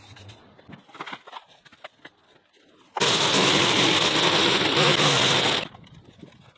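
A petrol line trimmer runs at full throttle through brush for about two and a half seconds, starting and stopping abruptly. Before it, rake tines scrape and click over dirt and debris.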